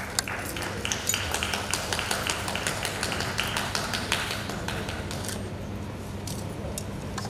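Audience clapping: a dense patter of hand claps that thins out after about five seconds.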